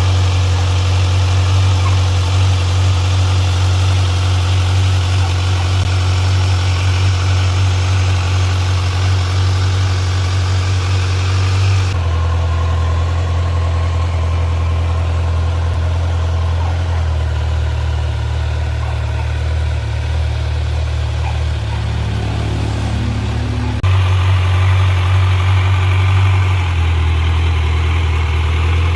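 Kawasaki Z900's 948 cc inline-four idling steadily through its stock exhaust, its tone shifting a few times without any revving.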